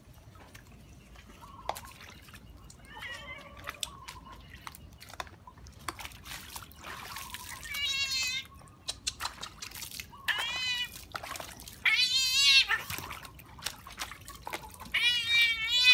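A cat giving loud, long, wavering meows of protest while it is held and washed in a plastic basin of water, four cries from about halfway through. Water splashes and drips in the basin between the cries.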